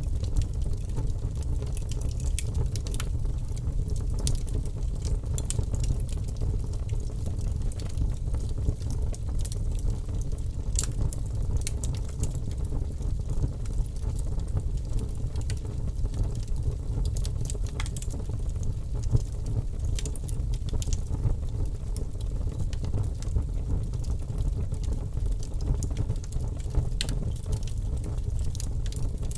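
Wood fire crackling in a fireplace: a steady low rumble of burning with frequent sharp pops and snaps scattered throughout.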